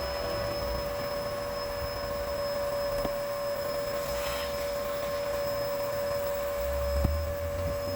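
Vacuum cleaner running with a steady high whine, with a couple of light clicks and a low thump near the end.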